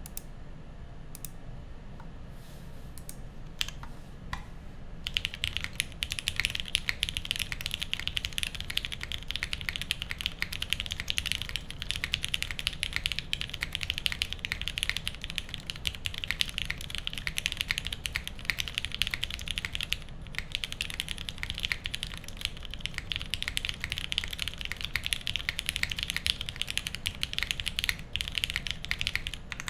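Typing on a mechanical keyboard with Cherry MX Black linear switches, GMK ABS keycaps, a polycarbonate plate and an aluminium case. A few scattered keystrokes come first, then fast, steady typing from about five seconds in.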